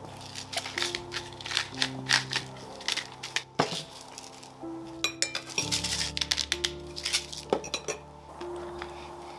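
Cutlery clinking against a plate in many quick, irregular clinks, over background music with held notes.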